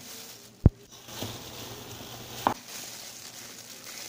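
Disposable plastic gloves crinkling as a cardboard phone box is handled, picked up and turned over, with a sharp tap just over half a second in and a softer knock about two and a half seconds in.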